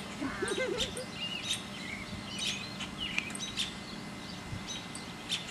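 Small songbirds chirping and calling, a string of short high chirps and trills, over a faint steady background hum.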